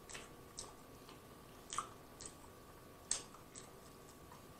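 Close-miked chewing: soft, wet mouth clicks and smacks about every half second as food is chewed with the mouth closed.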